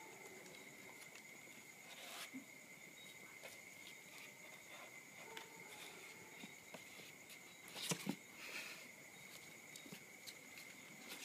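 Faint scratching and rustling of young kittens' claws and paws on a paper pad and cardboard box as they crawl about, with a few louder scrapes about eight seconds in.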